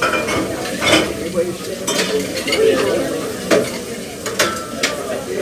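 Bar clatter: glassware and ice clinking in sharp, scattered clicks over a dense murmur of background voices.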